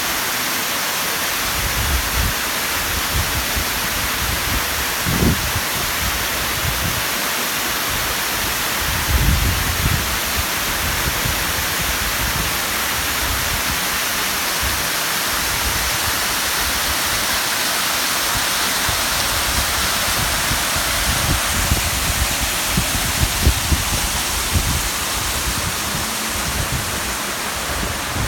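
Steady, loud rush of a waterfall, with a few brief low thumps.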